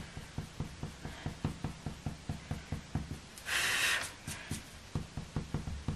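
Eraser rubbing back and forth on watercolour paper in quick, even strokes, with a short hiss about halfway through.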